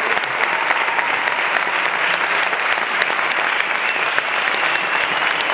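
Theatre audience applauding, a dense and steady clapping.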